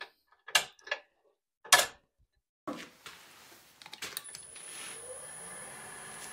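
Several sharp clicks and knocks, then about four seconds in a wood lathe's motor starts and spins up with a rising hum, settling into a steady run with a high whine.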